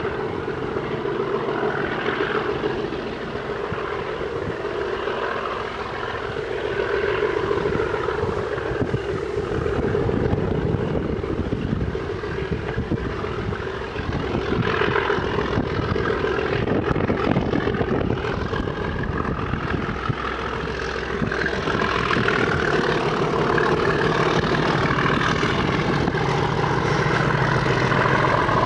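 Class 37 diesel locomotive's English Electric V12 engine droning steadily as the train approaches, getting louder toward the end.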